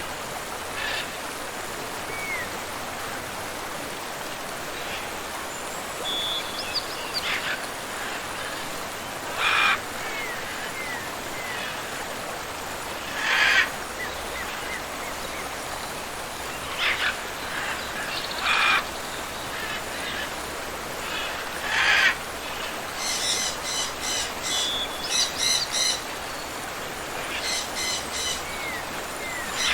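Steady rush of a waterfall and river, with birds calling over it every few seconds. The calls are short and loud, and near the end come runs of quick repeated chirps.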